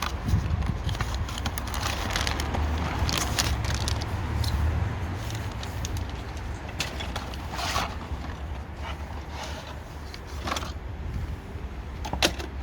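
Scattered clicks, light knocks and rustles of car parts being handled by hand, over a steady low rumble.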